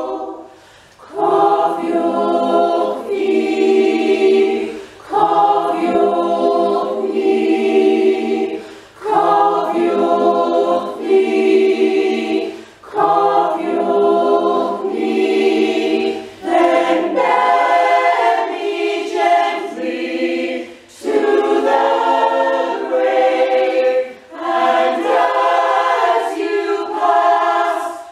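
Mixed choir of men and women singing unaccompanied, in slow phrases of about four seconds with a short breath between each.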